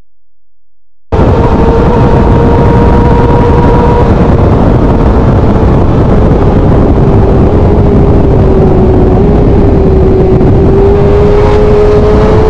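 BMW S1000RR inline-four sport bike engine running at high, steady revs at highway speed, with wind rushing over the microphone. The sound cuts in about a second in; the engine pitch sags slowly, then climbs again near the end.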